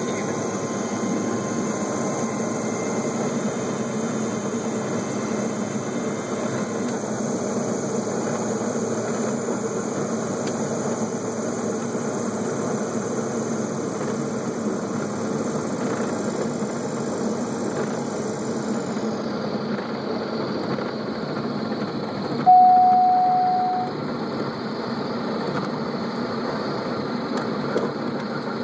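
Small airplane's engine and propeller running at low power, heard inside the cockpit as a steady drone during the landing rollout. About two-thirds of the way through, a loud steady tone sounds for about a second and a half, fading as it ends.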